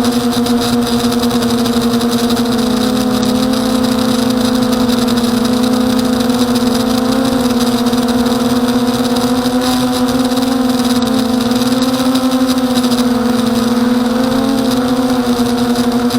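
Emax Nighthawk 250 racing quadcopter's motors and propellers buzzing in flight, a steady whine whose pitch drifts up and down slightly as the throttle changes.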